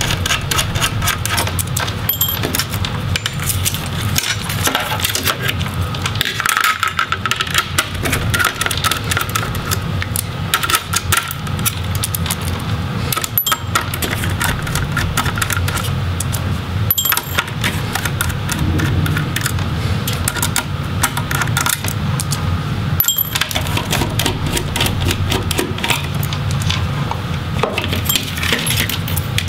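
Small metallic clicks and clinks, many of them close together, as a screwdriver works the small screws out of a laptop's metal display hinges.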